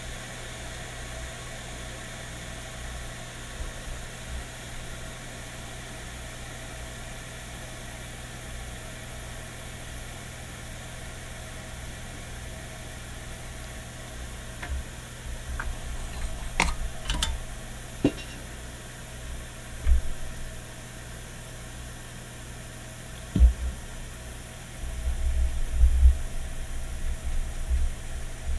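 Steady hum and hiss of microsoldering bench equipment, with a few sharp clicks of tools about halfway through and low bumps and knocks of handling near the end.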